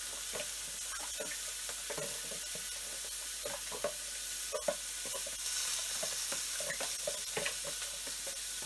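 Pork belly, shrimp and onion sizzling steadily in a wok, with repeated scrapes and taps of a ladle stirring rice-flour batter in a plastic jug.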